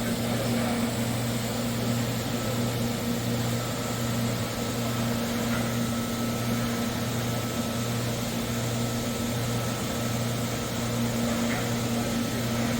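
Steady machine hum, low and even, with a faint thin high whine over it.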